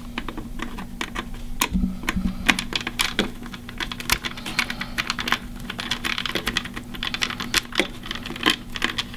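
Many small irregular clicks and taps from hands working a stripped wire into a security panel's screw terminal block and handling its plastic parts.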